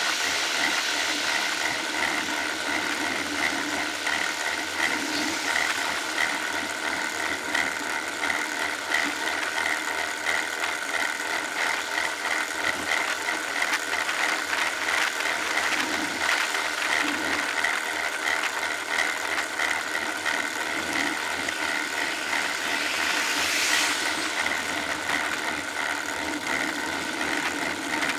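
Riding noise picked up by a bicycle-mounted camera: a steady whirring hum from the moving bike, with cars' engines going by close behind. A short hiss swells and fades near the end.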